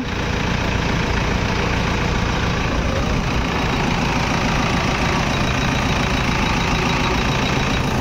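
Toyota Innova engine idling steadily while the steering is turned from lock to lock, with the newly fitted power steering pump making no whine: the steering noise has been cured.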